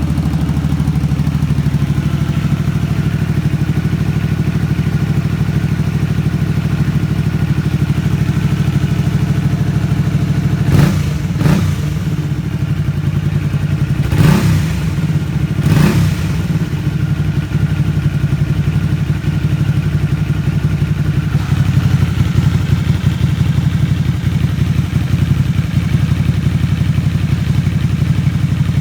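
Kymco Venox's rebuilt V-twin motorcycle engine running steadily, with four short sharp bursts about 11 to 16 seconds in.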